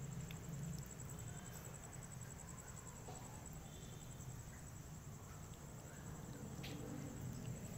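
Night insects trilling: a steady, fast-pulsing high-pitched trill, over a low rumble, with a few faint clicks.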